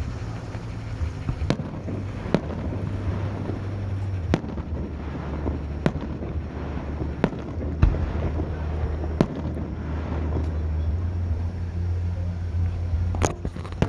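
Festival fireworks going off: sharp bangs at irregular intervals, about eight in all, over a steady low hum.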